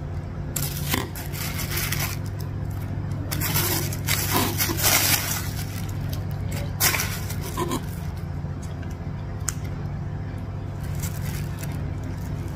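Thin plastic bag crinkling and rustling in several irregular bursts of handling, over a steady low hum.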